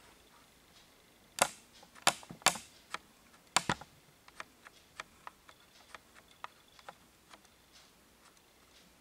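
A run of sharp clicks and taps from handling the camera: four loud ones between about one and a half and four seconds in, then fainter, fairly even clicks about three a second that die away near the end.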